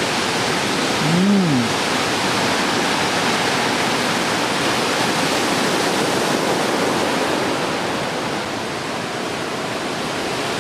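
Steady, loud roar of heavy surf from a typhoon swell, waves breaking and closing out. A short rising-and-falling "ooh" from a man about a second in.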